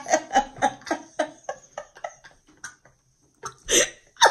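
Two women laughing, the laughter breaking into short pulses a few times a second that die away over a couple of seconds, then one short loud burst near the end.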